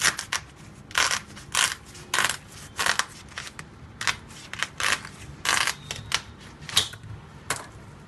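A kitchen knife sawing through a fresh ear of corn with its husk on: about thirteen crunching strokes, roughly two a second, as the blade cuts the husk, kernels and cob. They stop shortly before the end.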